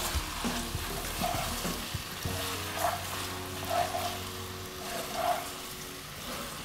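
Bow-tie pasta with shrimp and spinach sizzling in an oiled pan over turned-down heat, while a wooden spoon stirs and tosses it, with a stroke about every second.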